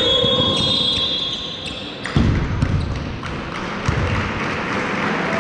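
Basketball game sounds: a referee's whistle sounds as a steady high tone for about two seconds, then the basketball bounces on the court floor a few times.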